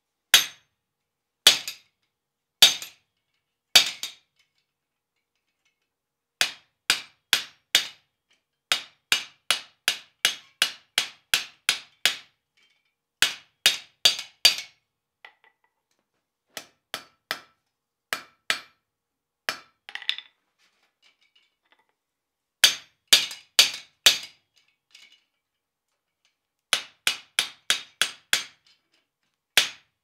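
Blacksmith's hand hammer striking hot steel at the anvil, partly on a bolted guillotine-style tool's top die, while a tenon is forged on a bar. The sharp blows come in runs of about two a second, with short pauses between runs.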